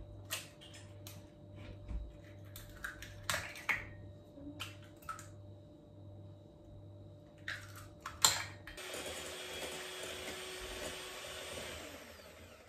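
Eggs cracked on the rim of a glass bowl: a series of sharp taps and shell cracks. About nine seconds in, an electric hand mixer is switched on and whirs steadily as it beats the eggs, stopping just before the end.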